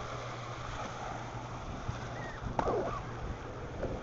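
Small waves washing up on the beach with a steady rush of surf and wind on the microphone. A brief high-pitched cry comes about two and a half seconds in.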